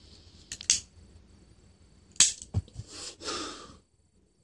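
A few sharp clicks and knocks, the loudest about two seconds in, followed by a dull thump and a short rustle that dies away just before the end.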